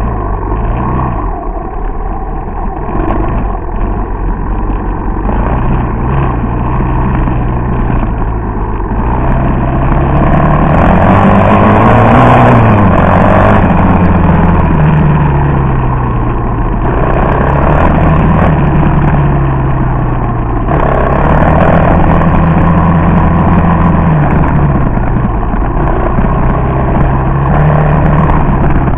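Three-wheeler ATV engine running close by on the throttle, its pitch and loudness rising to a peak about twelve seconds in, dropping back, then climbing and easing off a few more times.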